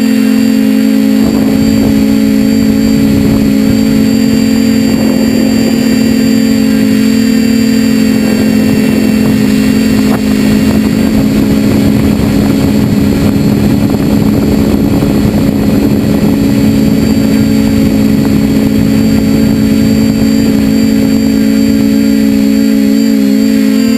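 Multirotor drone's electric motors and propellers, heard from the camera on board: a loud, steady hum with a high whine, holding one pitch throughout.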